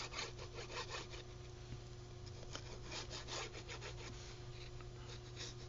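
Faint, irregular scratchy rubbing of a glue bottle's nozzle dragged along the edge of a kraft paper envelope as glue is laid on, with paper handling in between.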